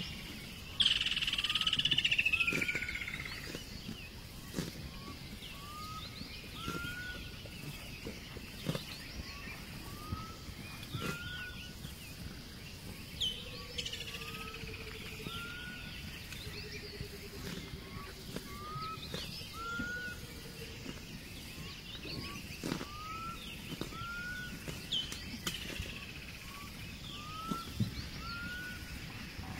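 Outdoor bird chorus. Short rising whistles come every couple of seconds, often in pairs. A longer, louder falling call comes about a second in and returns roughly every twelve seconds, over scattered clicks and a low drawn-out tone in the middle.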